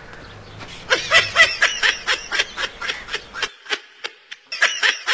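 A man laughing hard in quick, even bursts of about five a second, starting about a second in. About three and a half seconds in, the background hum drops out suddenly and the laughing goes on.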